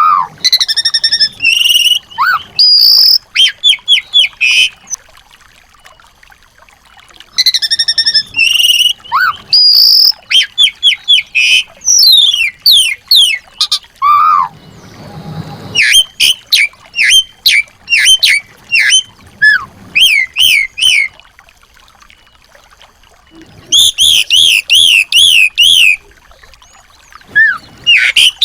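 Small songbirds singing: bouts of rapid, repeated high chirps and trills a few seconds long, broken by short pauses.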